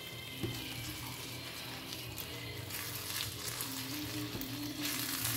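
Pork sisig and two eggs sizzling in a hot nonstick frying pan as a slotted spatula stirs through the mix, with a light tap about half a second in.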